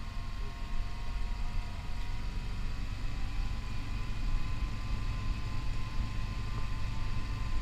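Motor of the camera vehicle running steadily ahead of the runners: a low rumble with a faint steady whine at several pitches.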